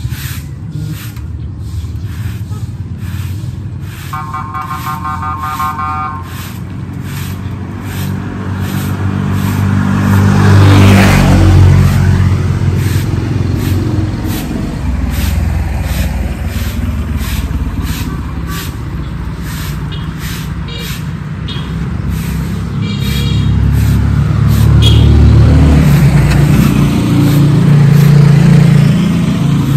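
Broom sweeping concrete in short, even strokes, about two a second, while road vehicles pass: one loud pass swells and fades about eleven seconds in, and another builds up near the end.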